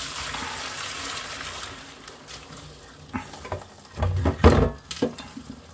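Hot spaghetti cooking water being poured off from a pot, a rushing splash that fades over the first two to three seconds. A few knocks of cookware follow, with a heavier thump about four seconds in.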